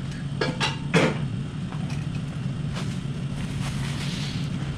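A wooden spatula knocking and scraping against a pot a few times in the first second as the last of the braised chicken is scraped onto a plate, over a steady low hum.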